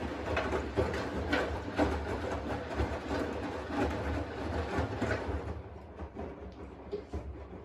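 Washing machine running: a low motor hum with irregular knocks and clatter as the drum turns. It gets quieter about five and a half seconds in.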